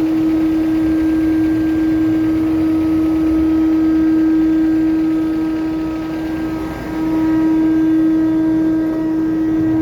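Steady machinery hum aboard a container ship during loading, with one strong unbroken tone over a rumbling noise; it eases slightly about two-thirds of the way through.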